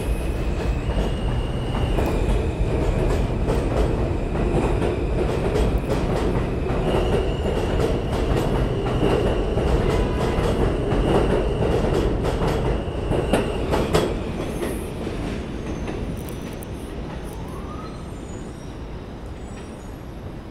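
New York City subway train running along the station platform and pulling away. Its wheels click over the rail joints under a heavy rumble, with a high steady wheel squeal. The sound fades steadily as the train recedes, starting about two-thirds of the way through.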